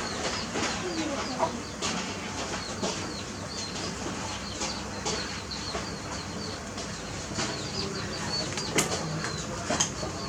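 Birds chirping over and over in short, high calls, with scattered clicks and rustles.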